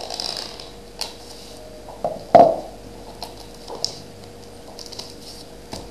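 Plastic shrink wrap on a sealed trading card box being picked at and torn open by hand, scattered crinkles and clicks, with one louder knock of the box about two and a half seconds in. A faint steady hum lies underneath.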